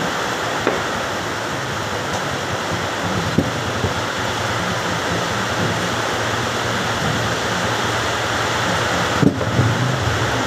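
Steady hiss of workshop background noise, like a fan running, with a few light clicks and one sharper knock near the end as the parts of a stripped car starter motor are handled.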